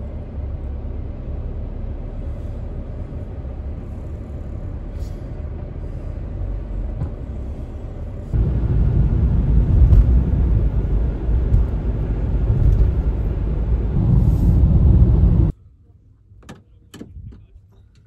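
Steady low rumble of a road vehicle on the move. It grows louder about eight seconds in and cuts off suddenly about fifteen seconds in, leaving a few faint clicks and knocks.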